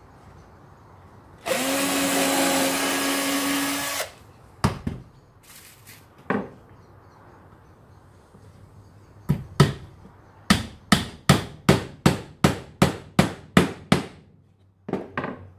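A cordless drill runs steadily for about two and a half seconds, boring a pilot hole into old wood. Later a hammer drives a small nail into the box with a dozen or so quick, even blows, about three a second.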